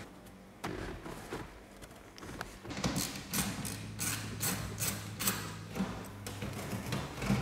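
Carpet and felt insulation being pulled back and the engine access panel handled: a run of short rustling and scuffing sounds, roughly two a second, starting about three seconds in.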